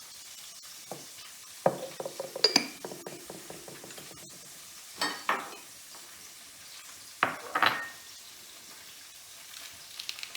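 Kitchen utensils and dishes knocking and clinking in three short bursts, over a faint steady sizzle of food cooking in a frying pan.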